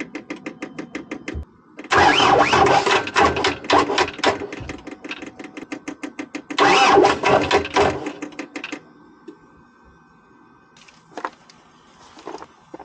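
Skid steer engine being cranked by its starter: a rapid ticking for the first second and a half, then about seven seconds of rhythmic chugging without the engine catching, then it stops. The battery is too weak to start it.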